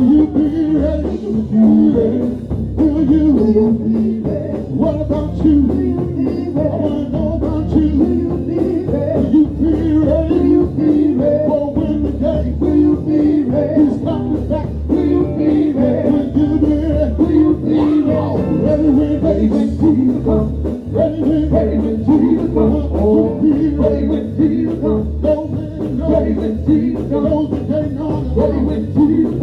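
Live gospel band playing an upbeat number with a steady bass beat, with singing over it.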